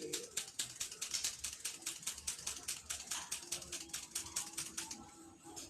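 Rapid, even clicking, about nine clicks a second, growing a little fainter near the end.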